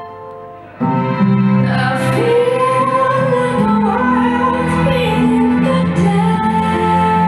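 Music with a woman singing. Held notes fade over the first second, then about a second in the music comes back in loudly with sustained low notes under the sung melody.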